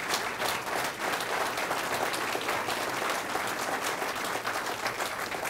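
Audience applauding: many people clapping at once, held steady and starting to thin out near the end.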